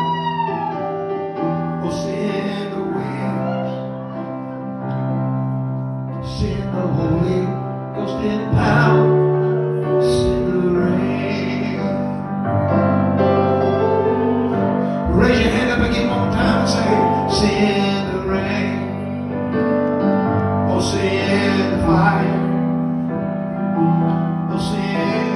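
Live gospel music: an electric keyboard holding sustained chords, with singing coming and going over it.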